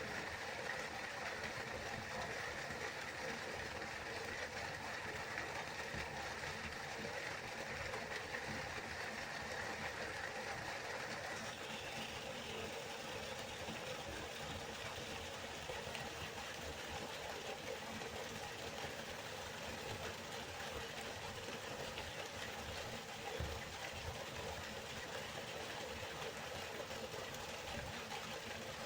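River water flowing, a steady rushing that shifts slightly in tone about twelve seconds in.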